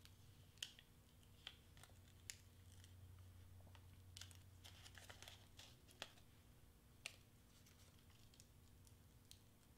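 Faint crinkling and a scattering of light clicks from small cut paper pieces being handled and peeled apart, over a low steady hum.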